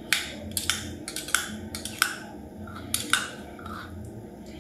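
A metal spoon clinking against a small glass jar of honey as honey is spooned out: a series of light, irregularly spaced clicks.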